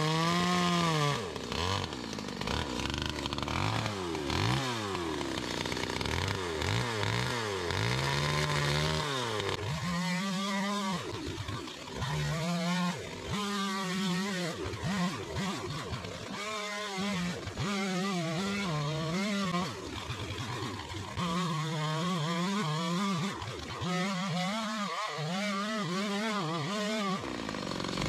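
Two-stroke chainsaw cutting the wedge (face notch) into the base of a small tree. Over the first ten seconds the engine revs rise and fall, then it runs as a series of full-throttle cuts a second or two long, with brief drops in revs between them.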